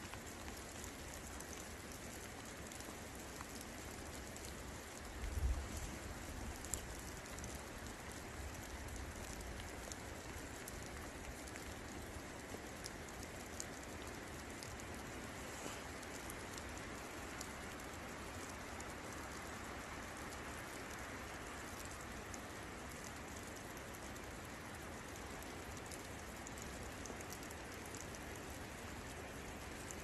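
Steady rain falling, with scattered close drops ticking; a brief low thump about five seconds in.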